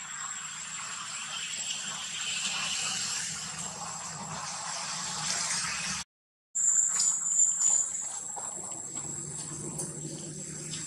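Outdoor ambience dominated by a steady high-pitched insect drone. The sound drops out briefly about six seconds in, then comes back with a short run of sharp clicks before settling again.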